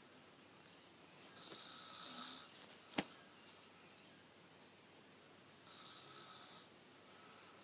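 A man snoring quietly: two hissy snoring breaths about four seconds apart, with a weaker one starting near the end. A single sharp click comes about three seconds in.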